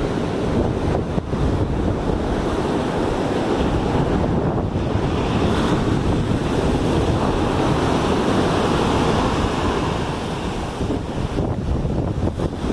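Ocean surf breaking and washing up a beach in a steady rush.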